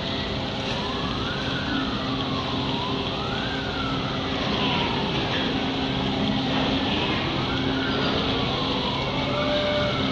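A wailing siren sweeps up and down in pitch about every two seconds, with more than one sweep overlapping, over a steady low hum and a constant hiss.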